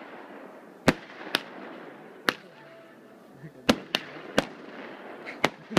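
Fireworks exploding: about eight sharp bangs at irregular intervals, some close together, over a faint steady crackle and hiss.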